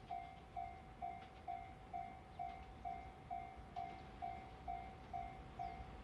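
Japanese railway level-crossing warning bell ringing steadily, a single clanging tone about twice a second, warning that a train is coming.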